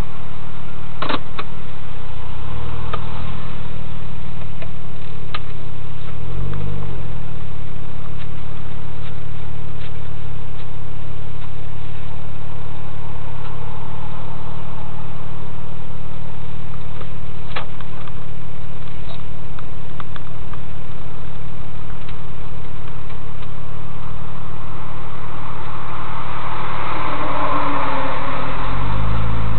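Porsche 996 Turbo-based Gemballa GT600 Evo's twin-turbo flat-six idling and creeping in low gear, heard from inside the cabin, with a few sharp clicks. The revs swing briefly about six seconds in and rise again near the end as the car pulls away.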